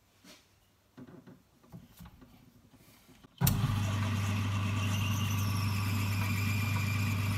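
A 1953 Boxford metal lathe is switched on about halfway through and runs steadily, a low electric-motor hum with several steady higher tones as the four-jaw chuck spins. Before it come only a few faint clicks.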